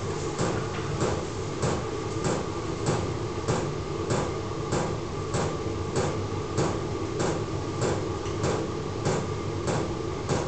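Small 12 V diesel heater running: its fuel pump knocks steadily, about one and a half knocks a second, over a steady hum.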